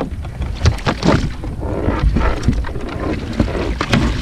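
Irregular clicks and knocks from a crab pot and crabs being handled while the catch is sorted, over a constant low wind rumble on the microphone.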